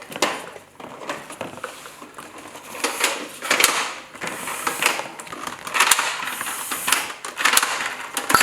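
Plastic toy blaster parts and ammunition being handled: irregular clicks, taps and rustling.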